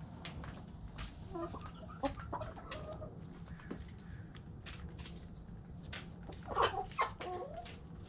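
Backyard hens clucking: a few short clucks about a second and a half in, and a louder burst of clucks near the end. Sharp ticks come and go throughout.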